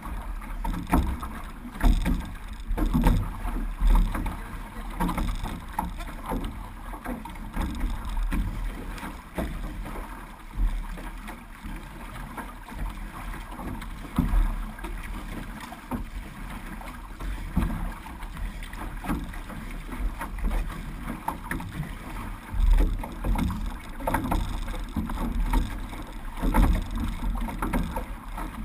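Water splashing and washing along the hull of a six-person outrigger canoe as it is paddled, with repeated surges from the paddle strokes. Wind buffets the microphone in low thumps.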